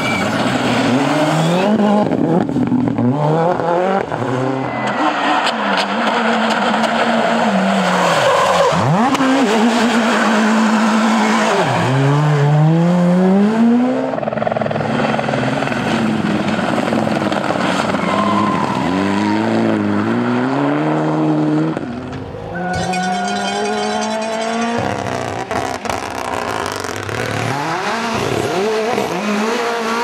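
Rally cars, among them a Ford Fiesta RRC and a Mitsubishi Lancer Evolution IX, passing one after another while accelerating hard: turbocharged four-cylinder engines revving up through the gears, the pitch dropping sharply at each upshift.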